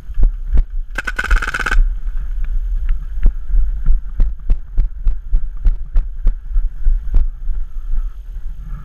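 Paintball marker shots fired in rapid strings. A very fast burst comes about a second in, then a steady run of sharp cracks at roughly five a second that stops near the end. A low thumping rumble of footsteps and wind on the microphone runs underneath.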